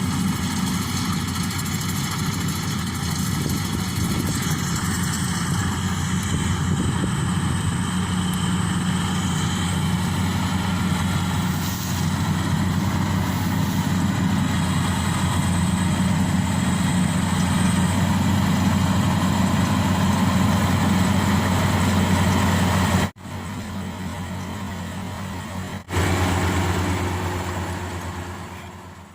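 Maxxi Bimo Evo Xtreme combine harvester's engine running steadily at working speed while harvesting rice, a constant low drone. It drops away suddenly for about three seconds near the end, comes back, and then fades out.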